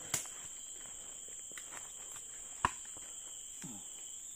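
Steady high-pitched drone of forest insects, with a sharp knock about two and a half seconds in and a smaller click at the start.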